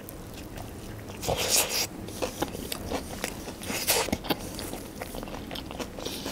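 A person biting into and chewing a fried chicken lollipop, a run of short crunching and chewing noises, with the loudest bites about a second and a half in and again about four seconds in.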